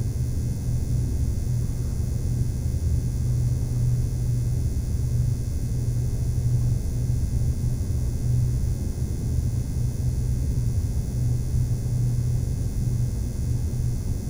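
A steady low rumbling hum with no beat or melody.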